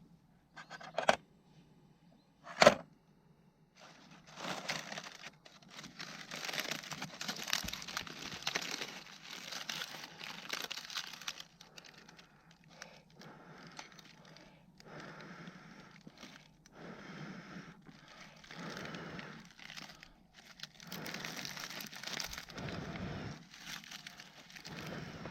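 Two sharp clicks, then irregular stretches of rustling and crinkling, like something being handled and crumpled.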